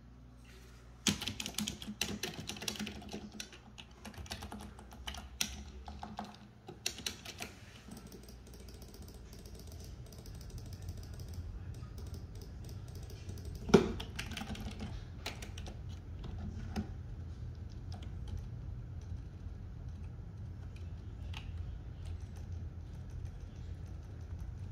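Typing on a Logitech wireless keyboard: a fast run of key clicks for the first several seconds, then scattered single key presses. One loud thump comes about 14 seconds in, and a low steady hum runs underneath.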